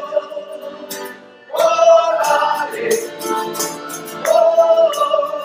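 A small strolling group singing with male voices to strummed guitars and a jingling tambourine; the singing drops off briefly about a second in, then comes back in full.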